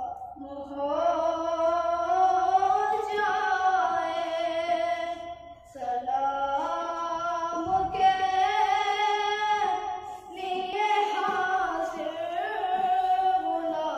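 A child's solo voice singing an Urdu naat unaccompanied, in long drawn-out melodic phrases with two short breaks for breath, about halfway through and again a little later.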